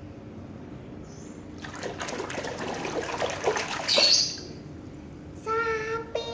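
Water splashing and pouring for about two and a half seconds, loudest just before it stops, as toy animals are washed. Near the end a high, drawn-out voice begins.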